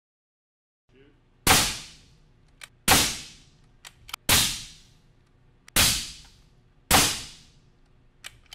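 Five suppressed .308 Winchester rifle shots (180-grain) through an AB Suppressor Raptor 7.62 eight-stack suppressor on a flush mount, each a sharp crack with a short fading tail, about a second and a half apart. They meter about 128 to 132 dB peak at mid gun. A few faint sharp clicks fall between the shots.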